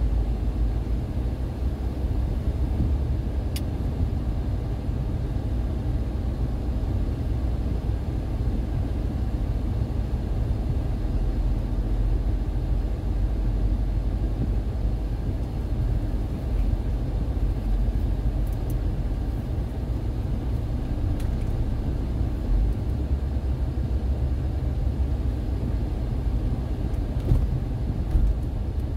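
Steady low rumble of a car on the move: engine and road noise heard from inside the cabin.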